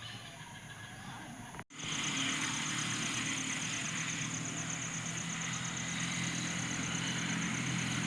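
Motor scooter engine idling. After a brief dropout about two seconds in it is louder, with a fast, high, evenly pulsing trill above it.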